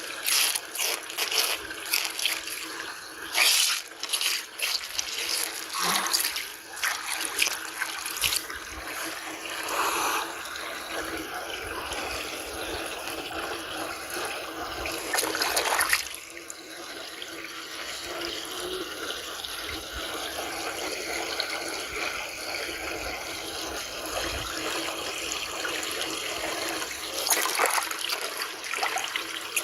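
Steady running water of a stream. Many short splashes and knocks come through it in the first half, then stop about halfway, leaving only the even rush of water.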